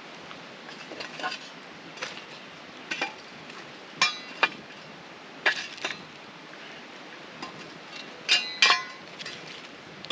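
Metal shovel blade striking and scraping the rocks and burning logs of a stone fire ring as the fire is stirred and raked: a string of irregular sharp clinks, the loudest about four seconds in and a close pair near the end.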